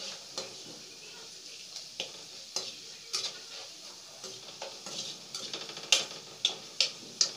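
Onions, green chillies and curry leaves sizzling in hot oil with turmeric and chilli powder in a nonstick kadai, stirred with a wooden spatula that scrapes and knocks against the pan. The knocks come every second or so and are loudest near the end.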